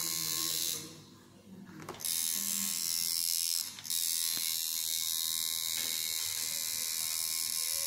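Electric tattoo machine buzzing steadily. It stops for about a second shortly after the start, starts again, and cuts out once more very briefly near four seconds before running on.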